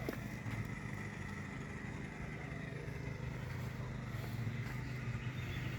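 A steady low engine hum, running evenly without change.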